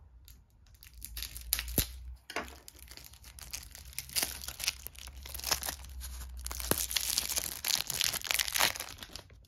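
Cellophane wrap being torn and crinkled off a deck of playing cards: irregular crackling with sharp snaps, starting about a second in and busiest near the end.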